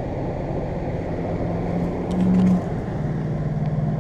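Steady low machine hum over a constant outdoor rumble, with a short louder low tone about two seconds in.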